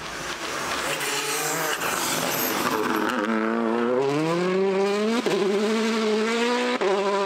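Rally car at full throttle on a gravel stage. A rush of tyre and gravel noise gives way, about three seconds in, to the engine note rising as the car accelerates, broken by two sharp cracks at the gear changes.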